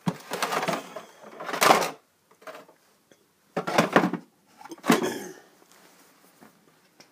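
Loose plastic body parts being handled, with four bursts of clatter and rattling and a few light knocks between them.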